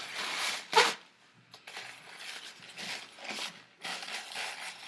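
Paper napkin rustling and crinkling as hands are wiped and rubbed in it, in a run of short scratchy bursts, with one louder sharp crackle just under a second in.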